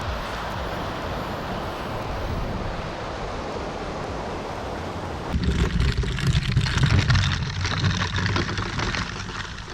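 Steady rushing of water and wind while kayaking; about five seconds in it changes abruptly to louder wind buffeting the microphone, with a gusting low rumble.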